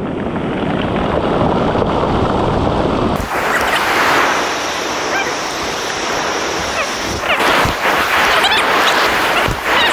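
Ocean surf washing and breaking on the shore, with wind on the microphone.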